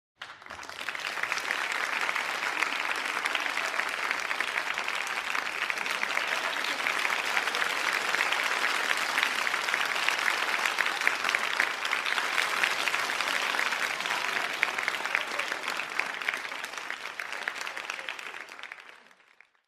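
Applause from a crowd: many people clapping at once in a dense, steady patter that starts abruptly and fades out near the end.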